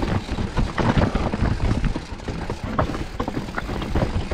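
Mountain bike riding over rocky, stony trail: a continuous rumble with frequent rattles and knocks from the bike jolting over the stones.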